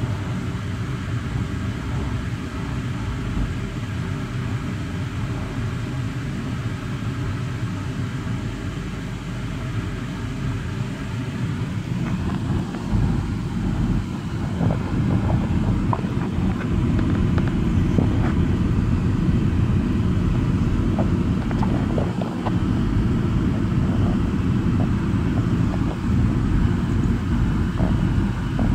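Car driving slowly, heard from inside the cabin as a steady low rumble of engine and tyre noise that grows louder about halfway through, with scattered light clicks.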